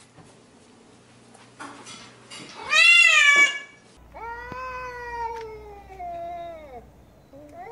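A cat's short, loud meow about three seconds in, rising then falling. Then a long, low, drawn-out yowl of about three seconds that slowly sinks in pitch: the angry threat call of tabby cats in a face-off.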